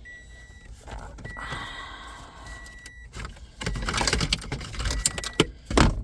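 Plastic dashboard trim pieces being handled and pushed back into place, rattling and clicking, with one sharp loud snap near the end. A high electronic beep sounds on and off behind it.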